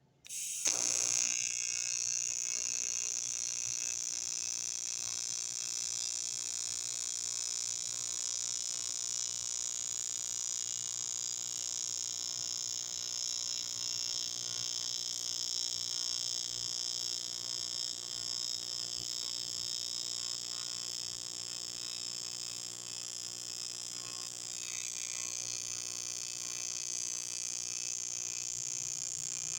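AC TIG welding arc on thin aluminum at about 110 amps: the arc strikes suddenly about half a second in and then buzzes steadily, with a shift in its tone a few seconds before the end.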